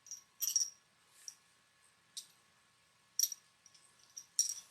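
Loose loaded cartridges clicking lightly against one another as they are handled: a few short, sharp metallic clicks spread out over a few seconds.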